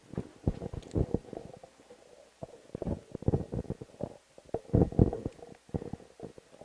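Irregular muffled thumps and rubbing of microphone handling noise, as handheld microphones are carried and gripped while people shift about.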